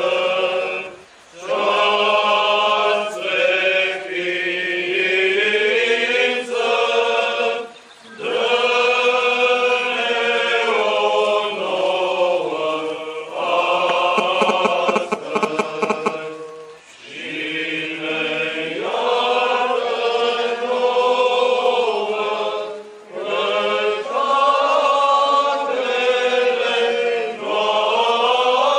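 Eastern Orthodox liturgical chant sung by a choir in long held phrases, broken by short pauses for breath.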